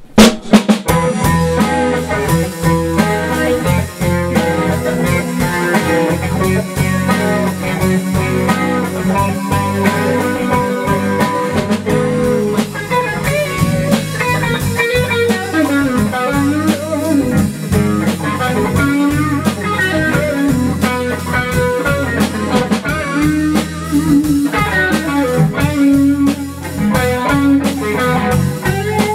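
A live blues-rock band playing: electric guitar over a drum kit and keys. The song starts abruptly just after the beginning.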